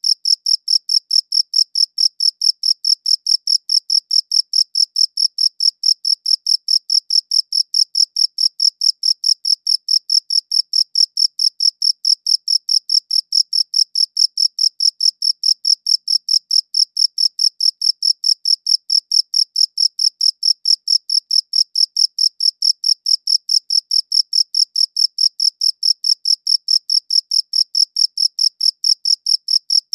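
A cricket chirping in a fast, even, unbroken rhythm of high-pitched pulses.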